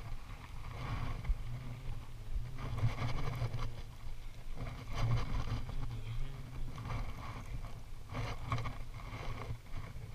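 Wind buffeting the camera microphone as a rumble that rises and falls, with a few brief rustles and knocks from handling the fishing rod and baitcasting reel.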